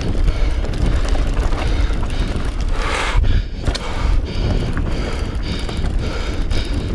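Mountain bike riding fast down a rough trail: steady tyre and drivetrain rattle with many small knocks, and wind on the microphone.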